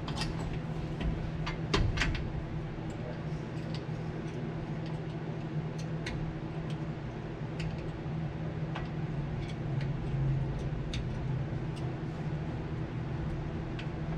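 Scattered light metallic clicks and taps at irregular intervals, a couple louder about two seconds in, from hand work fitting a starter bolt up under a race car, over a steady low hum.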